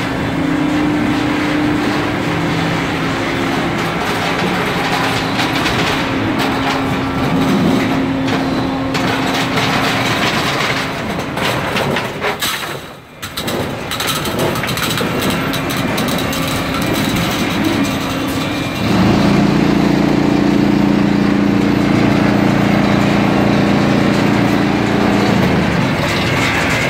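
Husky HyPET 400 PET preform injection molding line running: a loud, steady machine hum with a droning tone, with rattling and clatter in the middle. About two-thirds in, a louder, deeper hum sets in.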